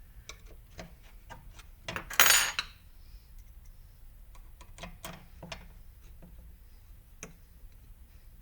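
Small metal screws and washers clicking and clinking as they are handled and fitted during a drive hub assembly, with one louder, longer stretch of handling noise about two seconds in.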